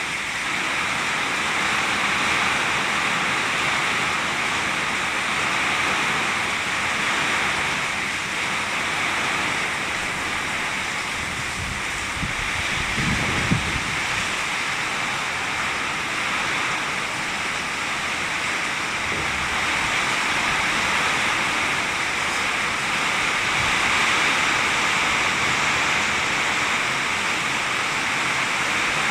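Heavy rain pouring steadily, with strong wind. About halfway through there is a brief low rumble and a single sharp knock.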